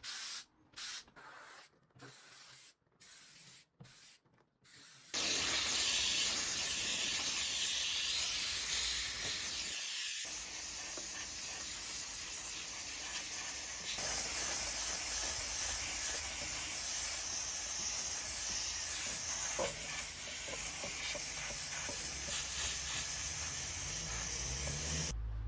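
A trigger spray bottle squirting glass cleaner in several quick puffs, then a steady loud hissing rush that runs about twenty seconds and cuts off suddenly.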